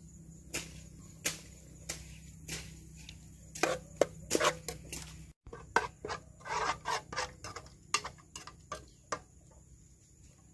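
Scattered sharp clicks and taps of a metal spoon against a cooking pot, then, after a short break about five seconds in, a denser run of crackles and pops from a wood fire burning under the pot.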